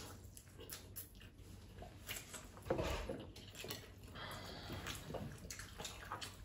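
Faint eating sounds: scattered small clicks of cutlery on plates and chewing, with a slightly louder clatter about three seconds in.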